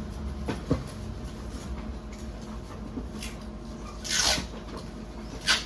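Steady low hum of an amplified sound system, with a short knock under a second in and two brief hissing noises near the end.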